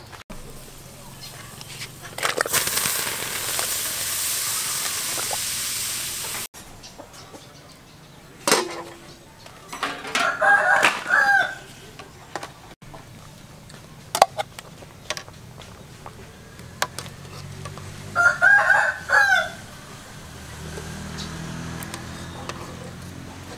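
A rooster crowing twice, about eight seconds apart. Each crow is a long call in several parts. Near the start there is a steady rush of noise lasting about four seconds, and sharp clicks and knocks are scattered through.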